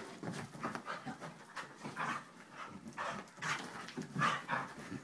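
Two dogs wrestling, panting hard in quick, irregular huffs as they grapple.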